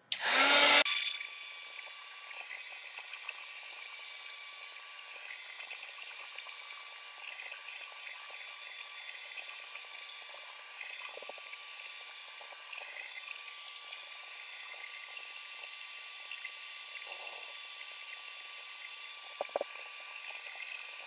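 Handheld heat gun blowing steadily over wet acrylic paint to dry a sponged layer, in sped-up footage. It is louder for the first second, then runs as an even hiss.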